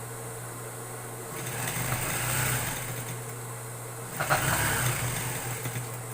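Electric sewing machine stitching in two runs, the first about a second and a half in and the second, shorter and sharper, a little past four seconds, over a steady background hum.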